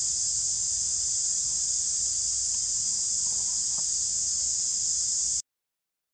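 Steady, shrill insect chorus: a dense, unbroken high-pitched drone that cuts off abruptly about five seconds in.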